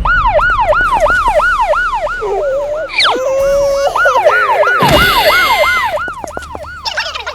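Fast yelping siren-like sound effect, a tone sweeping up and down about four times a second, with a brief noisy burst about five seconds in.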